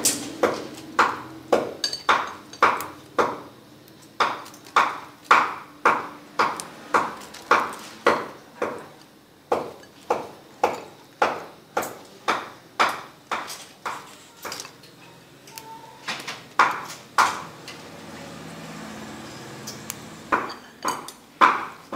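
Sharp ringing knocks repeated at an even pace of about two a second, with a pause of a few seconds near the end before they start again.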